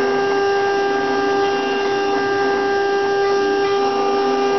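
CNC router spindle running with a steady whine while its bit carves a wooden figure turning on the rotary axis, with a rough wood-cutting noise under the whine.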